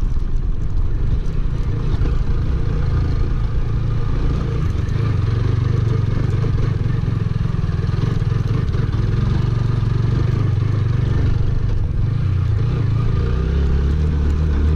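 TVS Apache 160 cc single-cylinder motorcycle engine running steadily while riding over a rocky dirt track, under a heavy low rumble on the bike-mounted camera's microphone.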